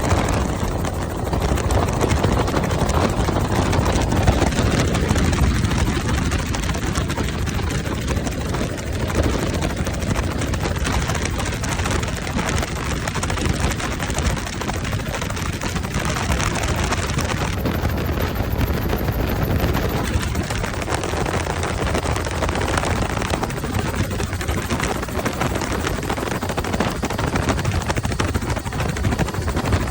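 Helicopter's engine and rotor running steadily, a loud, constant noise with no breaks.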